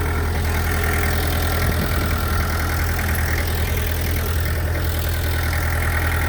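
Heavy-equipment engine running steadily at idle, a constant low hum.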